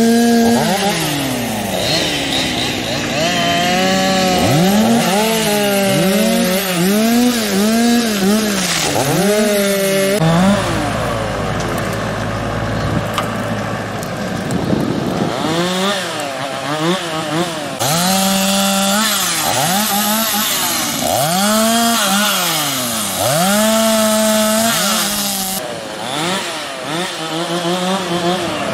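Two-stroke chainsaw cutting through burnt pine trunks, its engine revving up and down again and again as it bites into the wood. A lower, steadier engine rumble comes in briefly near the middle.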